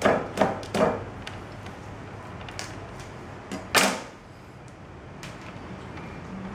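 Three quick knocks in the first second as a kitchen knife is worked into the seam of a durian's spiky husk, then a double knock, the second one sharp and loud, a little under four seconds in as the knife is set down on the wooden table.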